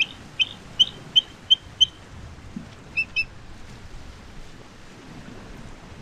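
Bald eagle calling: a quick run of about six high, clipped chirps in under two seconds, then two more about three seconds in. Steady surf and wind noise lies under the calls.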